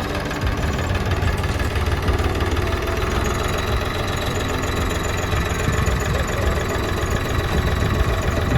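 Tractor diesel engine running steadily, as it drives a potato digger.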